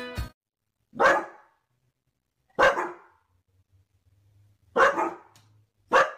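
Yellow Labrador retriever barking: four single, sharp barks spaced one to two seconds apart.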